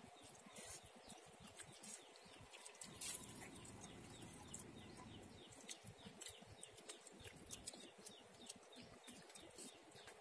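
Near silence: quiet outdoor ambience with scattered faint clicks and a faint run of quick chirps a few seconds in.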